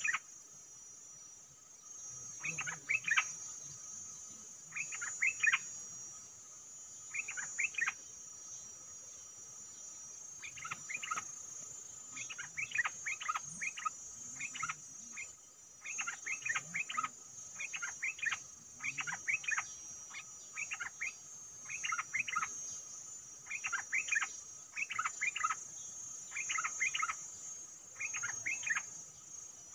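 Songbird calling in short, quick clusters of chirpy notes, a few seconds apart at first and then about once a second from midway on, over a steady high-pitched hum.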